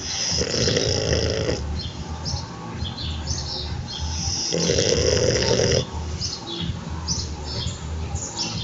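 French bulldog snoring: two loud snores about four seconds apart, each just over a second long, with quieter breathing between them.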